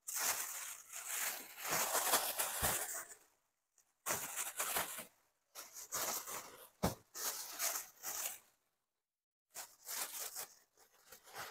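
Thin plastic bags crinkling and rustling in stop-start bursts as leafy vegetables are slid in and out of them, with a couple of soft bumps.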